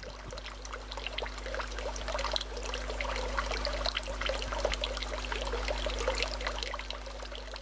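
Water from a garden water feature trickling and splashing into a pool in a dense, irregular patter over a steady low hum. It swells over the first couple of seconds and eases off near the end.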